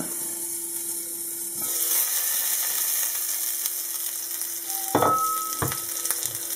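Wollwürste, skinless Bavarian sausages, sizzling as they fry in oil in a pan. The sizzle grows louder about a second and a half in, as the glass lid is lifted off. A clink with a short ring comes about five seconds in.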